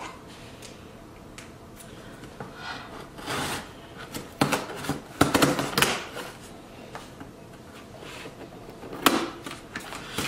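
Cardboard shipping box being handled and opened by hand: scrapes, rips and knocks of cardboard, loudest in a cluster about four and a half to six seconds in and again around nine seconds.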